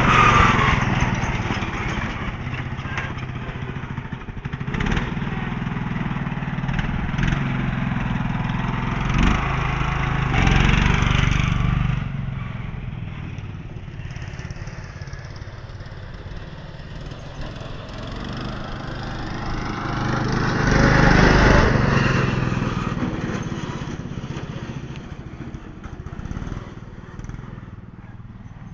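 Lawn mower's small engine running steadily as the mower is driven about, growing louder as it comes close about ten seconds in and again about twenty-one seconds in, then fading as it moves away.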